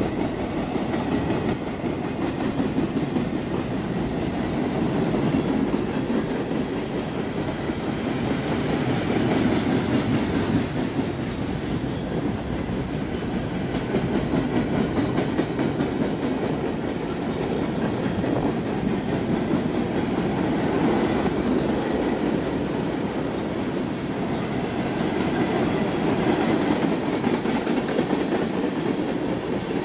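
Freight train's boxcars and tank cars rolling past: a steady rumble and clatter of steel wheels on rail that swells and eases as each car goes by.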